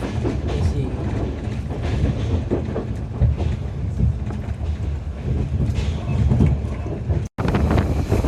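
Diesel multiple-unit intercity train running along the track: a steady low rumble of wheels and coach with faint clickety-clack. Near the end the sound cuts out for an instant, then carries on with more wind rush.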